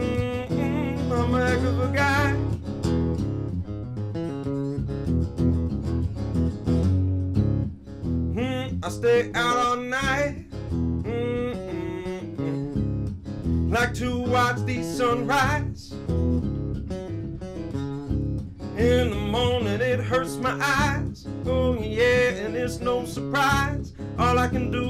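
Live acoustic guitar playing with a man singing over it in stretches.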